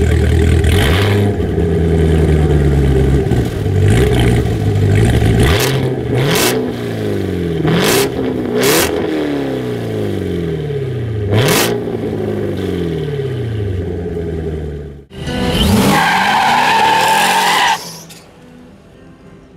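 C7 Corvette's V8 revved again and again while standing, each blip falling back, with sharp cracks from the exhaust between revs. Near the end a silver C5 Corvette is loud for about two seconds with a high steady squeal, then the sound drops away.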